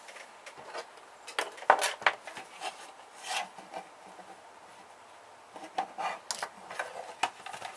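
Tools and hands scraping, rubbing and clicking against the case of an electronics switch box as it is taken apart, in short irregular strokes with a sharper click just under two seconds in.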